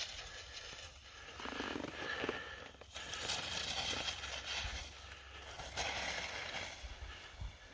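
Skis scraping through chopped-up snow in a series of turns, the noise swelling and fading with each turn, over a low wind rumble on the microphone.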